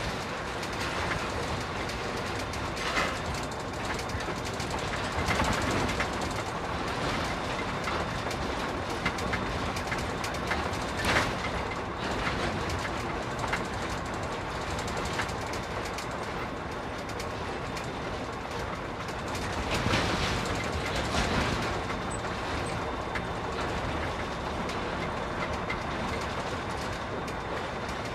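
Interior of a container truck cab on the move: steady diesel engine and tyre noise with loose rattles and knocks from the cab, the sharpest about eleven seconds in and a cluster around twenty seconds.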